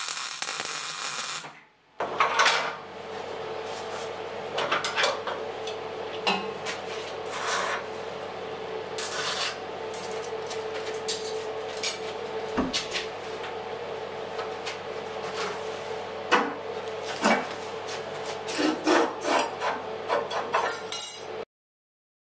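A brief crackling hiss of welding at the start. Then, after a cut, steel scraping and rubbing against steel as a heavy steel box is pushed and fitted in the steel frame of a hydraulic press, with many short, sharper scrapes over a steady hum, ending abruptly.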